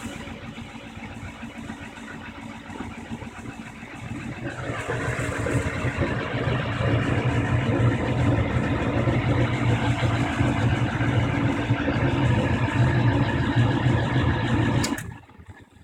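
Old Carrier/Bryant/Payne gas furnace misfiring as it lights: a steady rushing run that grows louder with a strong low hum about four seconds in, then cuts off suddenly after a click near the end. The owner thinks the faulty lighting may come from insufficient draft.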